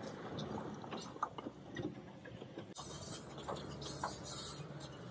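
Demolition machinery at work: a tracked excavator's engine running steadily under scattered clinks and scrapes of broken concrete rubble, with the sound changing about two and a half seconds in.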